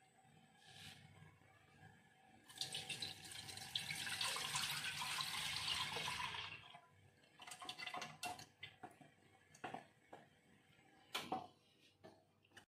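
Ragi flour dissolved in water being poured from a jug into a pressure-cooker pot, a steady splashing pour lasting about four seconds. Scattered knocks and taps against the pot follow.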